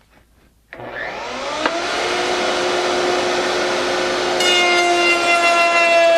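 Router on a router table switched on, its motor spinning up with a rising whine that levels off into a steady high-speed run at over 20,000 RPM, with the dust extraction running alongside. A further set of steady whining tones joins about four seconds in.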